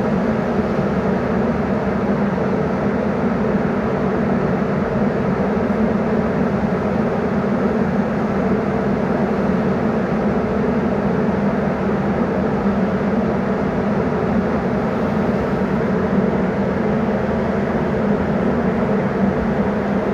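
Ventilation system running: a steady low rushing drone of air and fan hum with no change in level or pitch.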